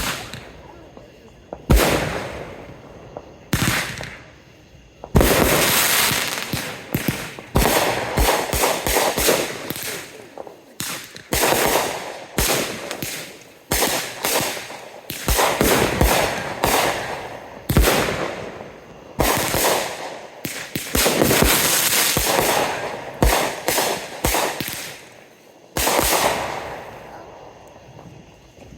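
Fireworks going off: a fast string of sharp bangs and crackling, packed in dense clusters for most of the time, with a last big bang a few seconds before the end and then dying away.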